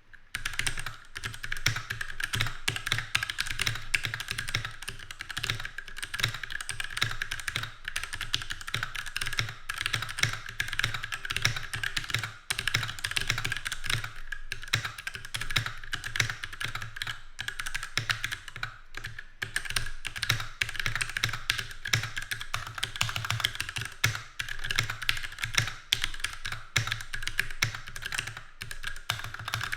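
Fast continuous typing on a Keychron K6 mechanical keyboard with Gateron red linear switches: a dense, steady stream of key clicks and clacks.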